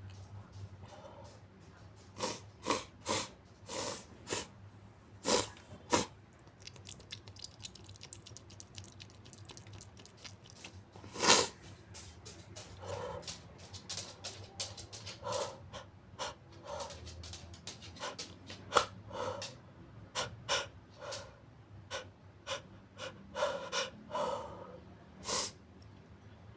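A person sniffling over and over through a runny, congested nose: short, wet sniffs and breaths, with one louder nasal burst about eleven seconds in.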